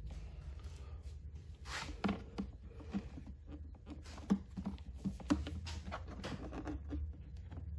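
Handling noise: light rustling and a scattering of short clicks and knocks as hands work a rubber fuel hose onto a brass barbed fitting inside a plastic generator housing. A steady low hum runs underneath.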